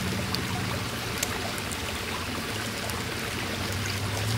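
Steady rushing hiss with a faint low hum and a few faint ticks.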